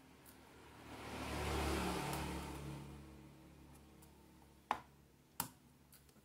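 A vehicle passes outside, swelling and fading in the first half. Near the end come two sharp clicks about two-thirds of a second apart, from metal multimeter test probes touching solder joints on a circuit board.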